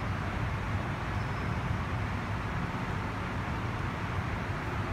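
Steady low rumble with a hiss on an underground metro station platform, with no distinct events.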